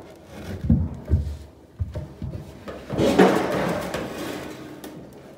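Wooden boards knocking twice on a plank floor, then a heavy wood cookstove scraping along the boards for a couple of seconds as it is pushed, fading toward the end.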